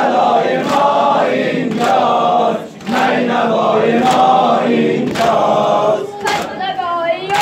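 A room of men chanting a Shia mourning lament (noha) in unison, with a sharp chest-beating slap (sineh-zani) about once a second in time with the chant. Near the end a single lead voice sings alone between the beats.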